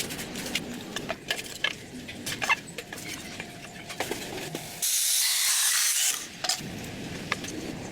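Light clicks and taps of small parts being handled, with a loud, even hiss about five seconds in that lasts just over a second and stops abruptly.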